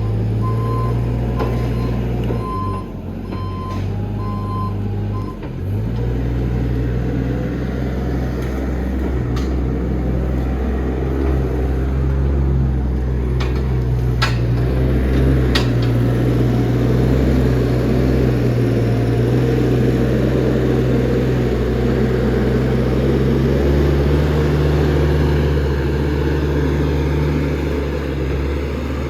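A forklift's engine running steadily under load, with its reversing alarm beeping in an even series for the first five seconds or so before stopping. A couple of sharp clanks come around the middle.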